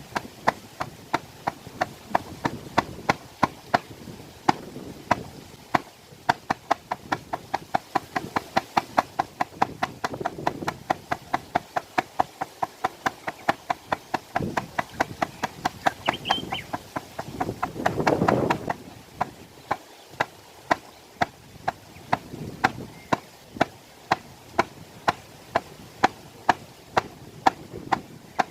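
Hand drum, a shaman's frame drum, beaten in a steady, even beat of about two to three strikes a second, as used for a drum journey, with a louder swell of sound about eighteen seconds in.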